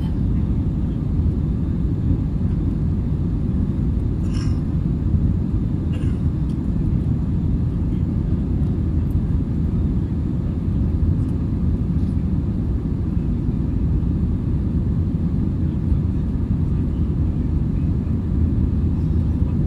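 Steady low drone of an Airbus A320-family airliner's jet engines and airflow, heard from inside the cabin during the climb after takeoff.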